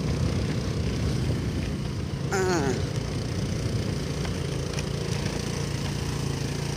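Honda Activa 4G scooter's single-cylinder engine running steadily while riding over a rutted dirt road, with road and wind noise. A short falling voice sound comes about two seconds in.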